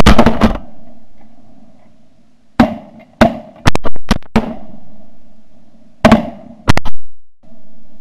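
Shotgun blasts from several hunters firing at Canada geese overhead: about a dozen shots in three quick volleys, near the start, in the middle, and near the end, each with a short echo.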